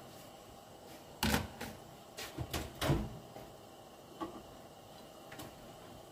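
A few sharp knocks and clunks. One comes about a second in, several follow quickly around two to three seconds in, and a lighter one comes near four seconds.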